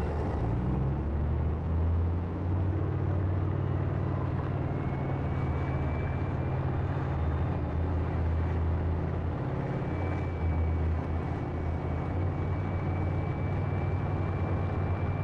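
Leopard 1 tank's ten-cylinder MTU multi-fuel diesel running as the tank drives cross-country, a steady low drone that rises in pitch about a second in. A faint high whine joins from about five seconds in.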